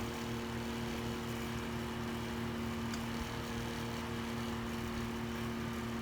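Small electric motor running with a steady hum: several constant tones over a low, evenly pulsing drone.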